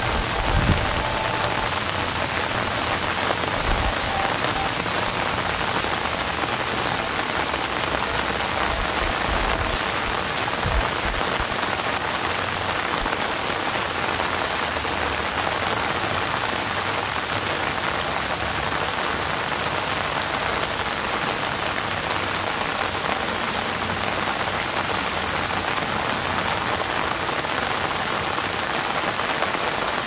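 Steady, even rainfall. A few brief low thuds come through it, about a second in, near four seconds and near eleven seconds.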